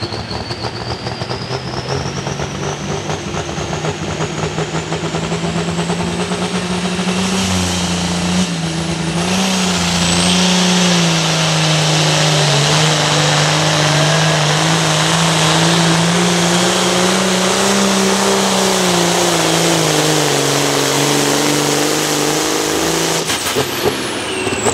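Oliver 2150 hot farm pulling tractor's turbocharged 466-cubic-inch diesel engine running at full throttle under load while dragging a pulling sled, with a high turbo whine that climbs over the first several seconds. The engine note wavers with the pull and sags near the end. It cuts off suddenly about a second and a half before the end, leaving the turbo whine falling away.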